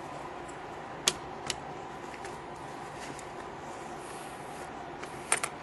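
Inside a JR 221 series electric train car, a steady hum of the car's onboard equipment, with no motor whine. Sharp clicks sound about a second in and again half a second later, then a quick pair near the end.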